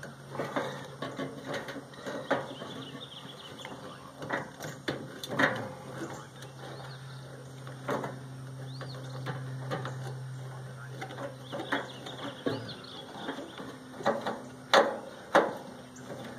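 Scattered clicks and knocks of hand tools and loose metal parts as a microwave oven is taken apart, over a steady low hum.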